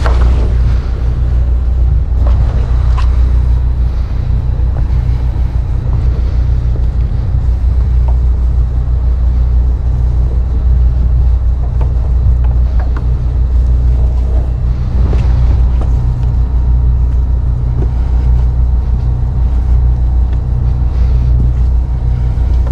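Boat engine running steadily at low speed, a deep, even rumble, with a few faint knocks scattered through it.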